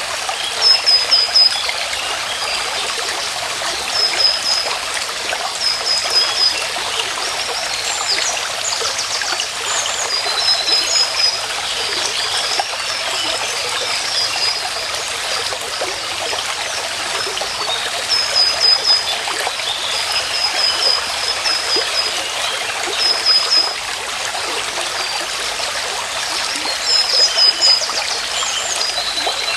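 Stream water running and trickling steadily. Over it, a high-pitched animal call of three or four quick notes repeats every couple of seconds.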